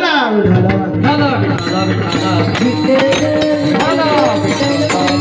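Devotional kirtan music: a drum and jingling percussion keep a steady beat under a pitched melody that starts at once with a falling glide.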